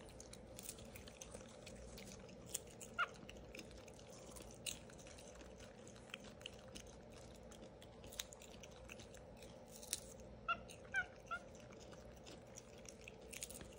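Capuchin monkey giving short high squeaks, one about three seconds in and a quick run of three or four about ten seconds in, over faint scattered clicks and smacks.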